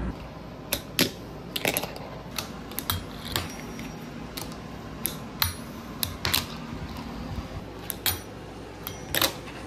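Fingerboard with Black River trucks and wheels being flicked through tricks on a countertop: sharp clacks as the tail pops and the board lands, about fifteen at uneven intervals, some in quick pairs.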